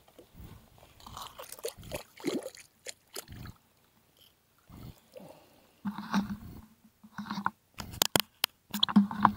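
Irregular close rustling and crunching as a freshly caught brown trout is unhooked and handled in lakeside grass, with a few sharp clicks near the end.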